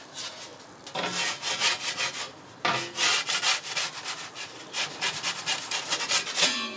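Homemade pizza paddle scraping along the stone oven floor as its blade is pushed under a pizza: a run of rasping scrapes, starting about a second in.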